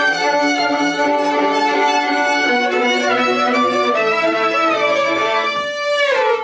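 Two violins playing a duet together, several notes sounding at once. Near the end the playing slides down in pitch into a final note and then stops.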